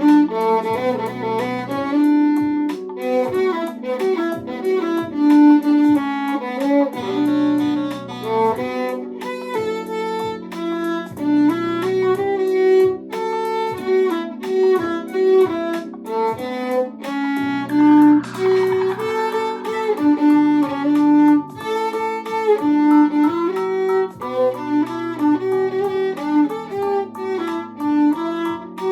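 Violin playing a song melody, one note after another, over a backing track with lower accompaniment and a steady beat.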